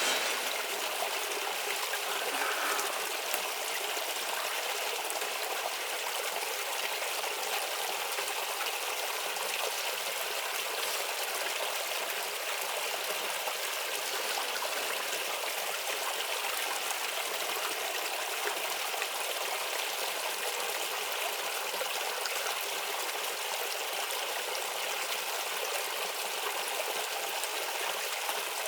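Small stream babbling and trickling steadily.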